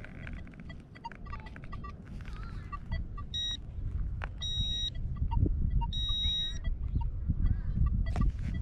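Metal detecting tones from a Nokta Makro Legend detector and pinpointer: many short beeps, with three longer high-pitched tones about three, four and a half, and six seconds in. A low rumble underneath grows louder toward the end.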